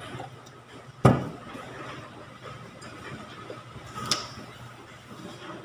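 A sharp knock about a second in and a lighter click about three seconds later, over a steady low hum.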